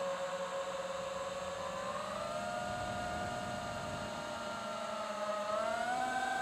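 FPV quadcopter's electric motors and propellers whining in flight, the pitch stepping up about two seconds in and again near the end as the throttle changes.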